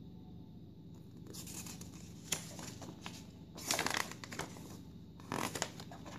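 A folded paper instruction manual being unfolded and handled: paper rustling and crinkling starting about a second in, with louder crackling bursts a little past the middle and again near the end.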